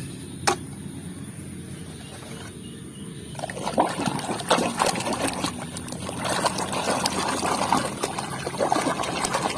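Water splashing and trickling as plastic toy animals are washed by hand in clean water. The splashing starts about three seconds in, after a single click near the start.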